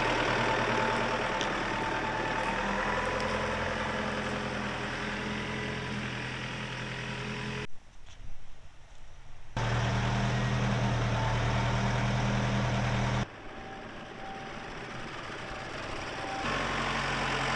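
A vehicle engine running steadily across several cut-together clips. It drops abruptly quieter for about two seconds, roughly eight seconds in, and again for a few seconds from about thirteen seconds in.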